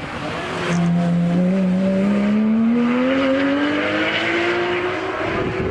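Porsche 911 GT rally car's flat-six engine accelerating hard. Its note comes in loud under a second in and climbs steadily in pitch through one long pull, with no gear change.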